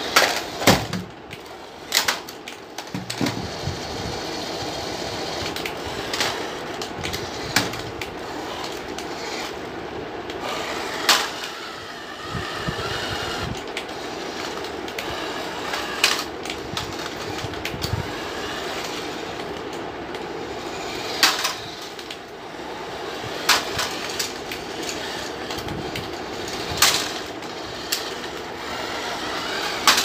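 Remote-control toy car's small electric motor whirring steadily as it drives over a tile floor, with a sharp plastic clack every few seconds as it knocks into other toy vehicles.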